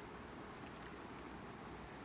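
Faint, steady outdoor background noise with no distinct event, and a few faint high ticks a little over half a second in.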